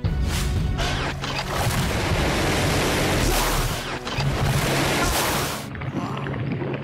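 Cartoon action soundtrack: music with a steady low beat under loud, dense, noisy sound effects that ease off about six seconds in.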